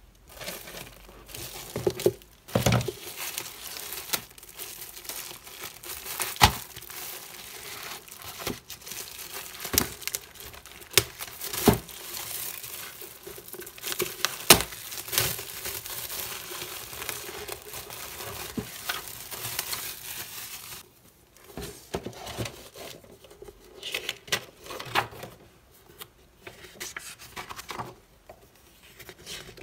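Parcel packaging being unwrapped by hand: dense crinkling with sharp tearing snaps, thinning out to scattered rustles and taps about two-thirds of the way through.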